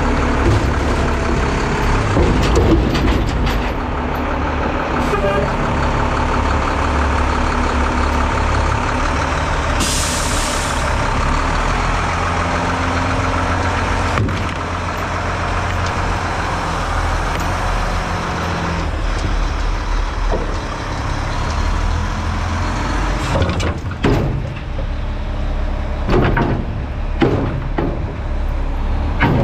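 Front-load garbage truck's diesel engine running steadily under hydraulic load as the arms lift a dumpster over the cab, with a short hiss of air about ten seconds in. Near the end come several bangs and knocks as the dumpster tips over the hopper and the trash drops out.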